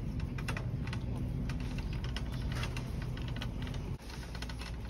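Red plastic shopping cart being pushed along a smooth store floor: a steady rolling rumble from its wheels with irregular light clicks and rattles. The rumble drops away about four seconds in.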